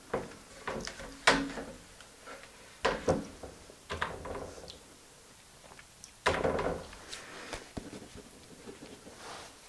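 A series of separate knocks and clicks from objects being handled, the sharpest a knock just over a second in, with a longer, rougher handling noise about six seconds in.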